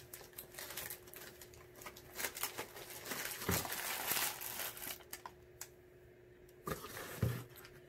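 Plastic lure packaging crinkling and a cloth bag rustling as they are handled, with many short rustles and small clicks. The sounds ease off for a moment just after halfway, then a few more clicks follow.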